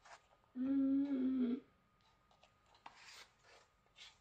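A voice holds one steady note for about a second. Faint rubbing and light clicks follow as a small plastic jar of acrylic powder is handled and set down.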